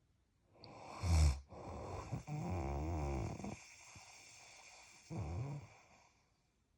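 Heavy snoring from a sleeper. A short loud burst comes about a second in, then a long rattling snore for about two seconds. After a quieter breath, a shorter snore comes about five seconds in and fades out.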